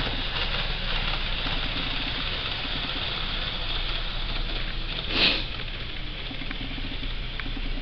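HO-scale model train running on a diorama layout under a tram-style controller, a steady mechanical running sound. About five seconds in comes one short, loud hiss, the loudest moment.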